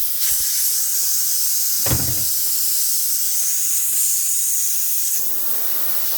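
Pressurised air hissing out of a tire's puncture hole once the screw is pulled out of the tread: a loud, steady rush that eases slightly near the end. A brief knock about two seconds in.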